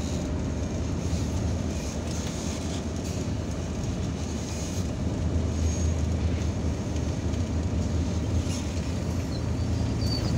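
Irisbus Citelis 12 m city bus heard from inside the passenger cabin: its engine running with a steady low drone as the bus draws up and stands at a stop. The hum shifts a little higher near the end.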